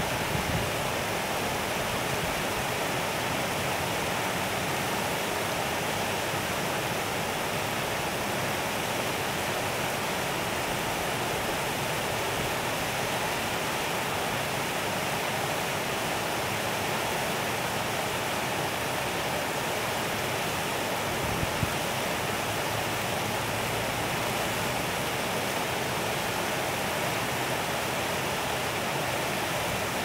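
River water spilling over a low weir: a steady, even rush of falling water.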